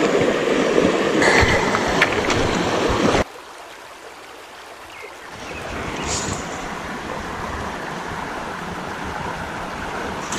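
Creek water running steadily over a shallow riffle, cutting off suddenly about three seconds in to the much quieter flow of a calm stretch of creek.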